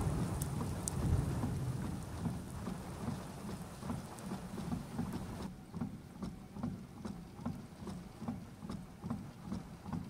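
Rain falling, with a low rumble underneath. About halfway through the sound drops abruptly to a quieter patter of drops over a low, regular pulsing of two or three beats a second.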